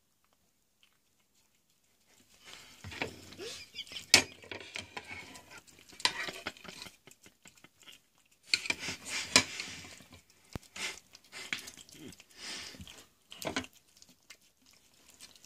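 A cat eating mashed potatoes and peas off a plate: wet, irregular licking and chewing that starts about two seconds in, with a short break in the middle and a few sharp clicks against the plate.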